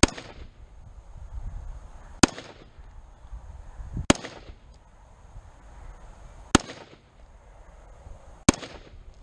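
Five rifle shots from a Springfield Saint Edge AR-15, fired slowly about two seconds apart. Each shot has a short echo that dies away.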